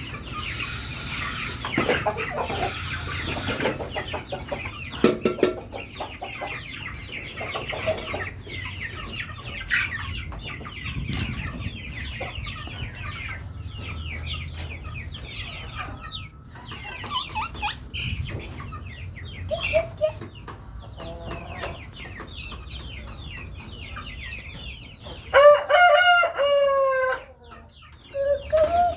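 A flock of chickens clucking throughout, with a rooster crowing loudly about three-quarters of the way in, the loudest sound here, and beginning another crow right at the end.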